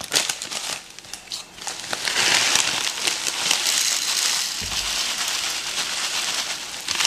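Dry Grape-Nuts cereal being poured in: first a few seconds of crinkly handling of the packaging, then from about two seconds in a steady rushing hiss of the small hard nuggets running out.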